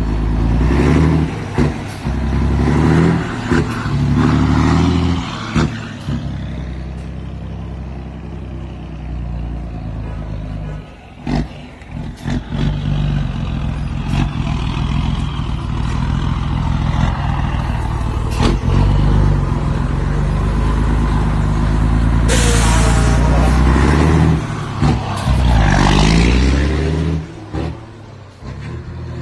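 Scania truck's diesel engine with a loud open exhaust, revving up and down as it drives and shifts through the gears. A loud hiss comes in about two-thirds of the way through.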